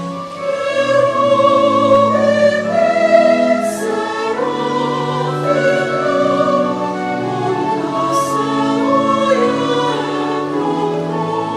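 Choir singing slow, held chords.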